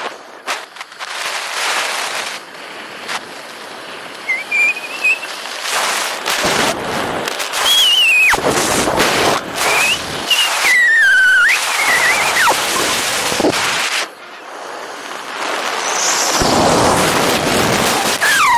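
Wind rushing and buffeting over the camera's microphone under an open parachute canopy, rising and falling in gusts and dropping off briefly about two-thirds of the way through. Several short whistling tones glide up and down over the wind.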